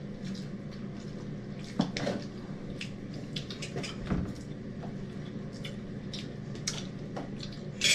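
Scattered light clinks and taps of spoons and forks against plates, bowls and mugs during a meal, over a low steady hum.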